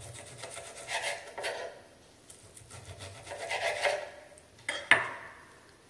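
Knife sawing through a cooked New York strip steak on a wooden cutting board: a few rasping strokes in two bouts, then a sharp click near the end.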